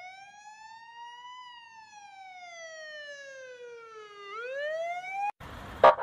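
Old-style police siren wailing: one slow rise and fall in pitch, then rising again before cutting off suddenly about five seconds in. A harsher, pulsing horn-like sound starts right after.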